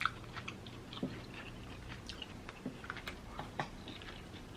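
A person chewing food, with scattered faint mouth clicks.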